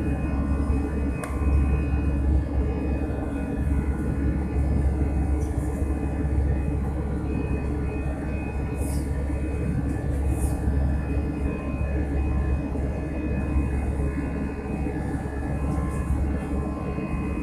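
Airbus A320's jet engines running steadily: a low rumble under several steady whining tones, with two brief hisses about nine and ten seconds in.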